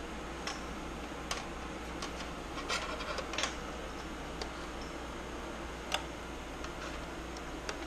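Scattered light clicks and rubbing as rubber-booted ignition leads are handled and fed through a metal bracket, with a small cluster of clicks about three seconds in and a sharper click about six seconds in. A steady low hum runs underneath.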